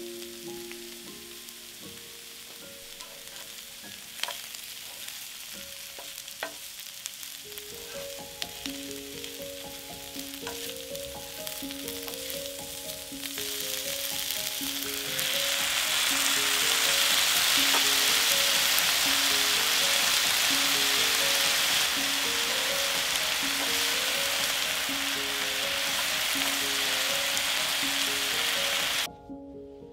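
Food sizzling in a hot frying pan, with occasional light ticks of stirring. The sizzle grows much louder about halfway through, holds steady, and cuts off suddenly near the end.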